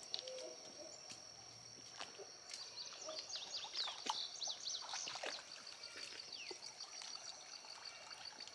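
Birds singing around a pond: many quick, high chirps that sweep downward, busiest in the middle, over a steady thin high whine, with a fast, even trill of high ticks in the second half.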